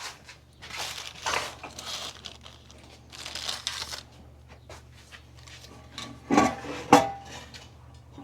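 Rustling and rubbing handling noises during the wheel-bearing job, then two sharp metallic clanks with a brief ring a little after six seconds and about seven seconds in, as of steel tools or parts knocking together.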